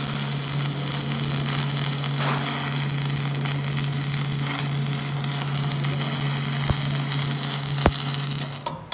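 Electric arc welding on a broken steel gear shaft: a steady crackle and sizzle from the arc over a low electrical hum, joining the two halves of the shaft. The arc cuts off near the end.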